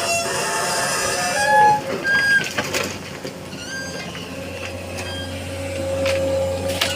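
Excavator at work: its engine running with a steady hydraulic whine that grows stronger near the end. Short high squeals and creaks come from the working arm, along with a few sharp knocks.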